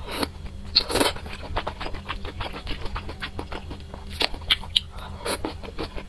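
Close-miked slurping of noodles, with two noisy slurps at the start and about a second in, followed by chewing and many short wet mouth clicks.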